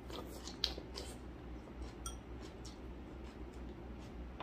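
Eating utensils, a spoon and chopsticks, tapping and scraping against ceramic bowls: a scatter of light clicks and clinks, the sharpest just over half a second in and a brief ringing clink about two seconds in.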